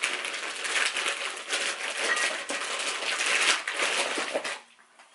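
Clear plastic parts bag crinkling and rustling as hardware is handled, with scattered small clicks and knocks of the parts. It stops abruptly about four and a half seconds in.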